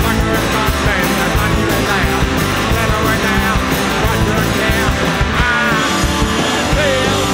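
Live rock band playing with electric guitar, bass and drums, and a male voice singing over them.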